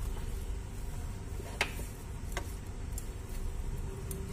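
A wooden spatula knocking and scraping against a nonstick frying pan as thick semolina dough is scooped out: a few sharp, separate clicks, the clearest about halfway through, over a low steady rumble.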